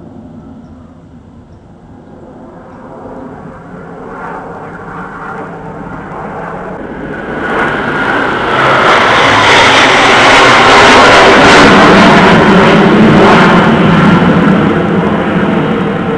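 Blue Angels F/A-18 Hornet jets flying over. The jet roar builds from a faint rumble to a loud rush, is loudest around ten to thirteen seconds in, then begins to fade.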